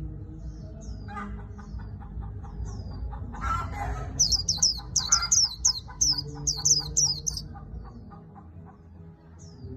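White-eye singing its rapid 'líu' warble: quick high falling notes, a few scattered ones at first, then dense loud runs from about four to seven and a half seconds in, tailing off near the end.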